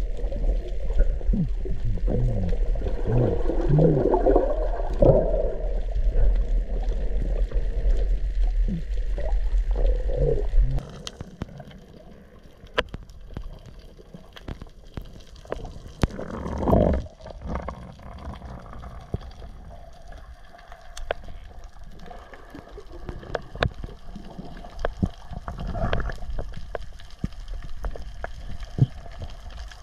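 Underwater sound on a reef: for about eleven seconds a loud low rumble with wavering tones, then, after an abrupt drop, quieter underwater ambience with scattered clicks and one brief louder swell.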